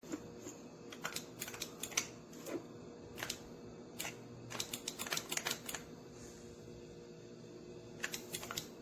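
A string of light, irregular clicks and taps, bunched in the first six seconds and again near the end, over a faint steady hum.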